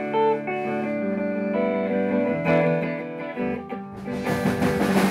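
Band music led by electric guitar and bass guitar, playing held notes that change every half second or so, with a fuller, noisier stretch coming in about four seconds in.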